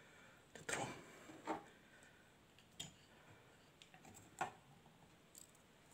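Faint sharp clicks: about four, irregularly spaced a second or so apart, with a few fainter ticks between.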